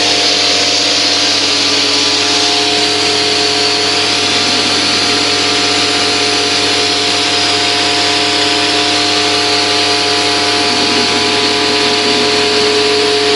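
Self-service coin-operated car wash machine running: a steady motor hum with a few constant tones under a loud, even hiss.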